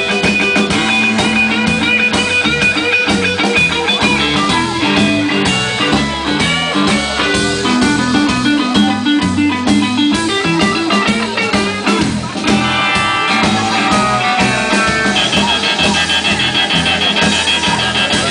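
Live blues-rock band playing an instrumental passage: electric guitar lines over bass guitar and drum kit, loud and steady.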